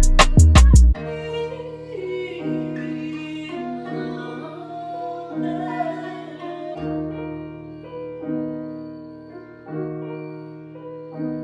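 Background music: a heavy beat stops about a second in, giving way to a quieter passage of held chords that change every second or two.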